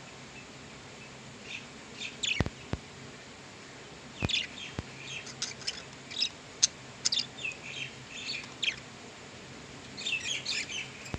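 Pet budgerigars chirping and chattering in irregular bursts of short, high notes, with a few sharp clicks in between.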